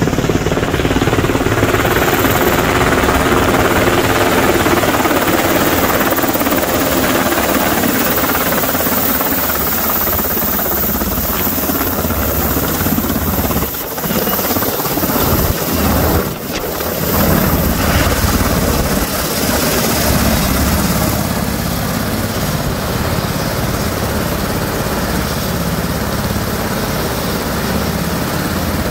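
US Army UH-60 Black Hawk helicopter flying in low and setting down, its rotors and engines loud and steady. It then runs on the ground with the rotors still turning, a little quieter near the end.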